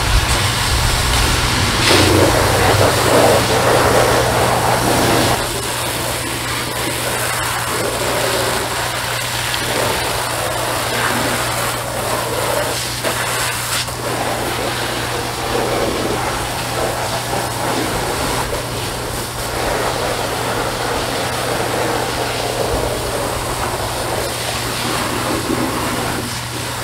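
Pressure washer running with a steady motor hum while its spray hisses against the rocks and liner of a drained koi pond.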